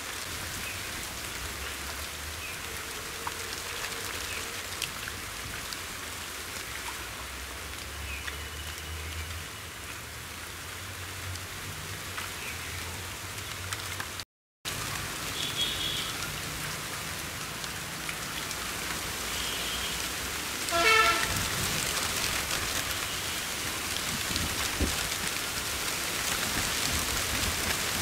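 Steady splashing and sloshing of muddy water as people wade and grope through shallow pond mud by hand. About 21 seconds in, a brief loud pitched sound cuts through.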